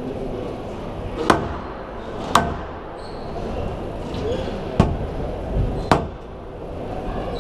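A squash rally: four sharp cracks of the ball being struck by rackets and hitting the walls, about one to two seconds apart, over the murmur of a hall full of spectators.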